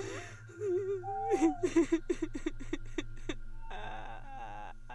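Eerie horror-style laughter sound effect: a wavering, drawn-out voice-like tone, then about a second in a run of short laughing pulses that slow down and fade out, over a steady low hum and a thin high tone.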